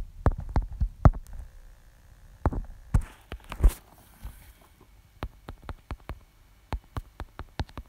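Irregular taps and clicks of fingers typing on a smartphone's touchscreen keyboard, with a brief rustle about three seconds in.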